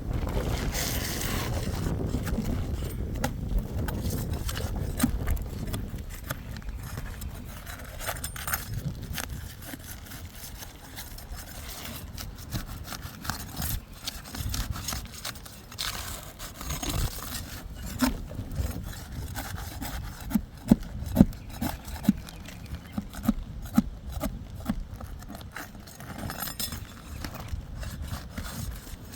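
Scraping, rubbing and sharp clicks and taps of hand work on an asphalt shingle roof, as nails are pulled and a shingle is worked loose. A low rumble fills the first few seconds, and the clicks and knocks come thickest in the last third.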